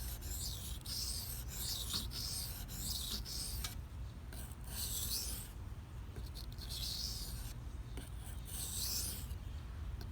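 Knife edge of S30V steel stroked across a Shapton Pro 320-grit waterstone, a gritty scraping hiss with each pass. Quick alternating passes in the first few seconds give way to slower, longer strokes about every two seconds: finishing passes once a full burr has formed along the edge.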